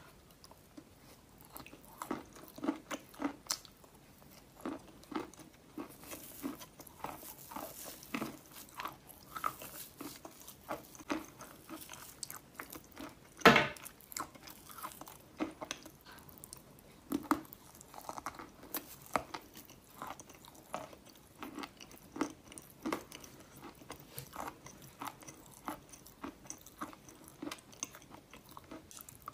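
Close-up crunchy biting and chewing of a stick of chalk: many short, sharp crunches at an irregular pace. One much louder crack comes about halfway through.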